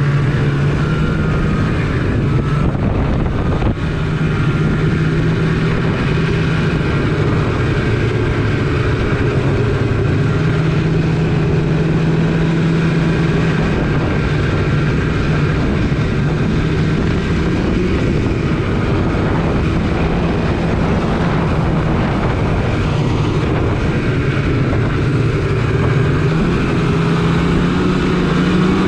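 Polaris RMK snowmobile engine running steadily under way, its pitch wavering a little and rising near the end.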